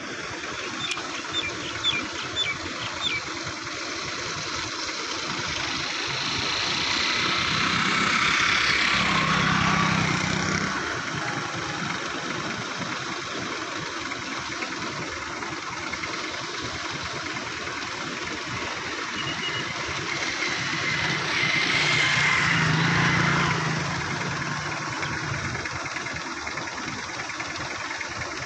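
Motor vehicle engines passing by twice, each swelling in loudness and then fading with a falling pitch, one about a quarter of the way in and one past the two-thirds mark, over a steady background hiss.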